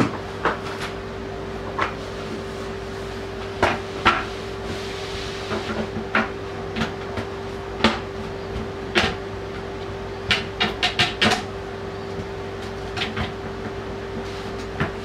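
Plastic bidet toilet seat being handled and fitted onto the bowl: a run of irregular clicks, knocks and clacks, a few close together around ten to eleven seconds in, over a steady hum.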